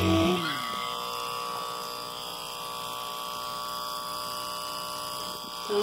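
Electric hair clipper running with a steady buzzing hum.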